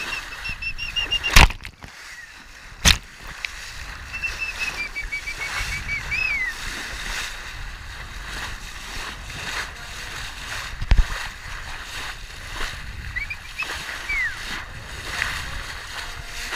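Water rushing and splashing along a sailboat's hull, with three sharp knocks and a few runs of short, high squeaky chirps that fall in pitch.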